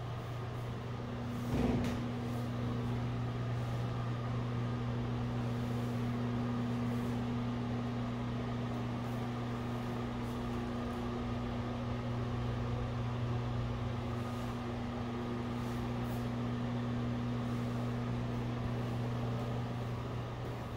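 Steady low mechanical hum with a thin higher tone over it, and one brief thump about two seconds in.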